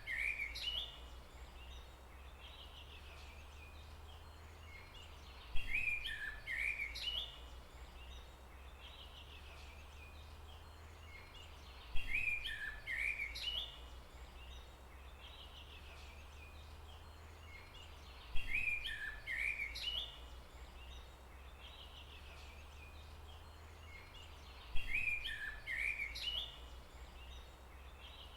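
A songbird's short chirping phrase, the same each time, recurring evenly about every six and a half seconds, as in a looped recording. Each phrase opens with a sharp click and comes four times, plus the tail of one at the start. A steady low rumble runs underneath.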